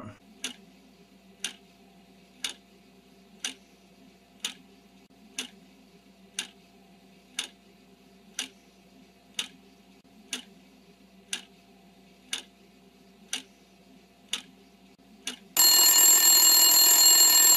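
Countdown timer sound effect: a clock ticking about once a second over a faint low hum, then a loud alarm sounding for the last two seconds as the answer time runs out.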